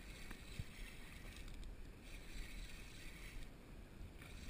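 Light wind rumbling on the microphone over faint small waves lapping against a rocky shore.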